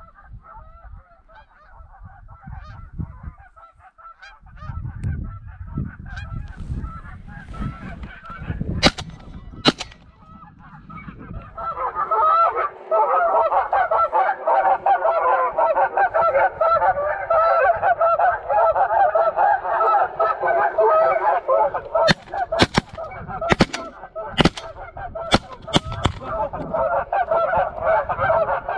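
A flock of geese honking, faint at first and then loud and continuous from about twelve seconds in. Two sharp bangs come before the loud honking, and a quick volley of about six more comes near the end, consistent with shotgun shots fired at the flock.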